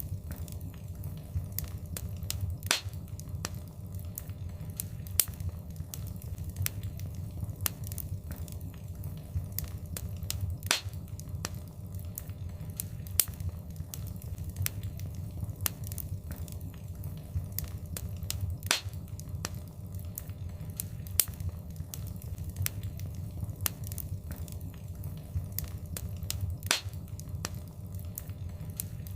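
Wood fire in a fireplace crackling, with irregular sharp snaps and a handful of louder pops over a steady low rumble of the flames.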